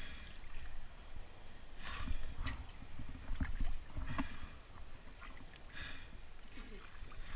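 Water sloshing and splashing around a scuba diver struggling in the water beside a floating dock, with scattered short knocks and clatter of gear.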